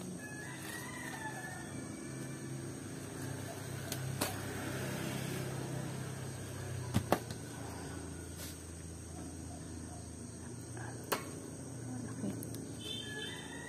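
Rural yard ambience: a steady high insect drone with chirping bird or chicken calls near the start and the end, and a few sharp clicks from hands handling the yam tubers on the vine.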